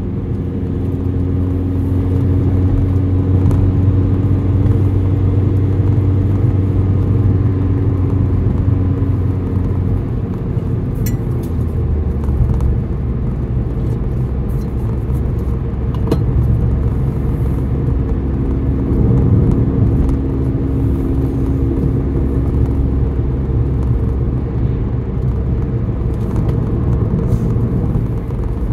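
A car being driven: a steady low engine and road hum whose tone shifts about ten seconds in and settles again later, as the speed changes in traffic.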